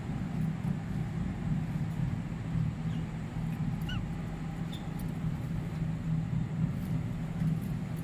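A steady low hum, with a few faint, short budgerigar chirps about three to five seconds in.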